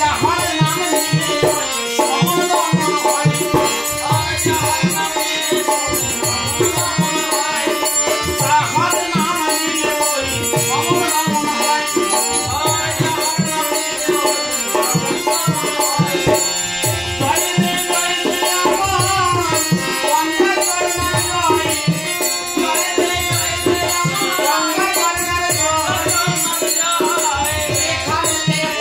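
Devotional kirtan music: a harmonium holds steady chords under group singing, while a khol barrel drum beats a steady rhythm.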